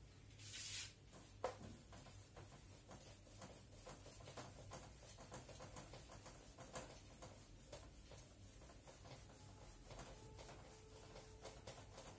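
Faint rubbing of a duster wiping a whiteboard, many quick strokes one after another, with a single sharp click about a second and a half in.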